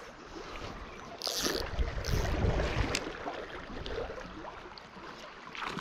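Steady rush of a shallow river's current, with wind gusting on the microphone a second or two in. Two short hissing rustles come about a second and two seconds in.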